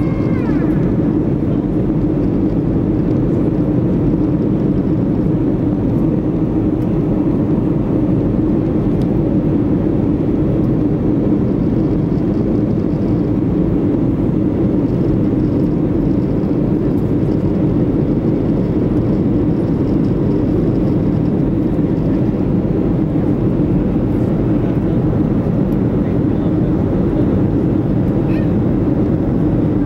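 Steady engine and airflow noise inside the cabin of a Boeing 737-500 with CFM56-3 turbofans, heard during the descent. A high whine drops away in the first second, then the noise holds even.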